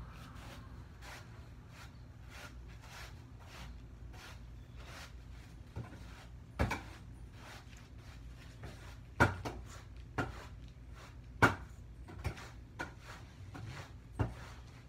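Broom strokes going over a floor, a row of faint regular scrapes and ticks, then from about halfway through a handful of sharper knocks and bumps, the loudest two a couple of seconds apart.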